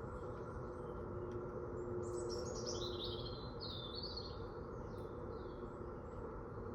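Songbird singing in woodland: a run of quick chirping notes starting about two seconds in and lasting about three seconds, with fainter calls before and after, over a steady low background noise.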